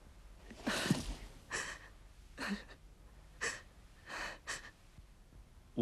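A person breathing in short, noisy breaths, about five of them roughly a second apart, a couple with a brief catch of voice, like someone gasping or sobbing.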